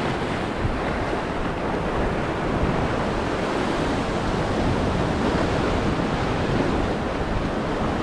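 Ocean surf breaking and washing over a rocky shoreline: a steady rush of water.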